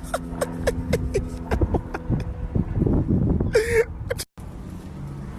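A person's voice making a quick run of short sounds, each falling in pitch, over a steady low hum. The sound cuts out for a moment near the end.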